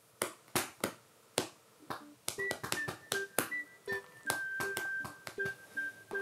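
A hand patting a Border Collie's furry rump like a drum: a series of sharp pats. From about two seconds in, light keyboard music with a stepping-down melody plays along with the pats.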